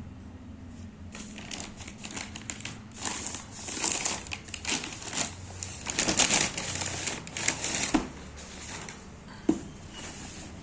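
Shoe-box packaging wrapping being handled, crinkling and rustling in irregular bursts as the box is unboxed, with a sharp click near the end.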